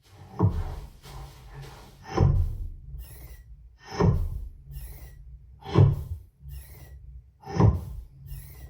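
Deep cinematic boom hits played through a Sonos Arc Ultra soundbar and Sub 4 subwoofer, five of them evenly spaced about two seconds apart. Each one drops quickly in pitch and dies away.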